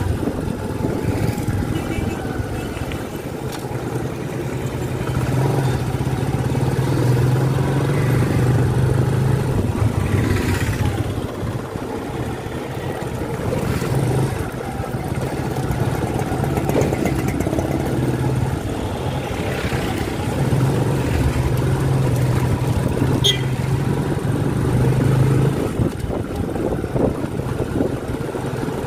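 Motorcycle engine running steadily while riding, with wind and road rumble over it; the engine note grows louder twice as the bike pulls harder.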